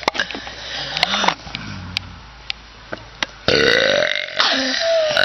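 A young woman burping: after a few softer sounds, one long, loud belch starts about three and a half seconds in and carries on for over a second.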